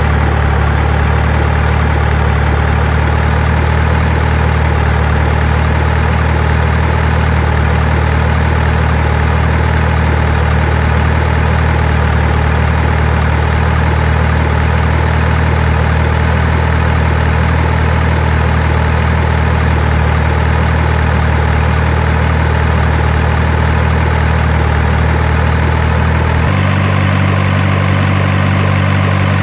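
Heavy engine idling with a steady low hum. About three seconds before the end the hum abruptly changes to a different pitch pattern.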